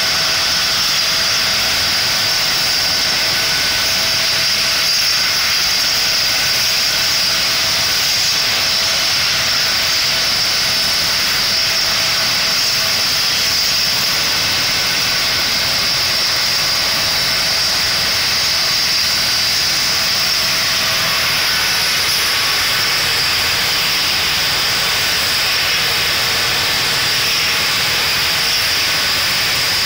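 Doctor-heli air ambulance helicopter's turbine engines running on the helipad after landing: a steady high whine over a hiss, holding the same pitch throughout.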